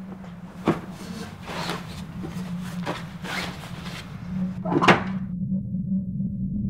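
Scraping and rustling of things being handled in a wooden drawer: a sharp knock about a second in, then several rubbing strokes, the loudest near the end. These cut off abruptly, leaving a low steady hum.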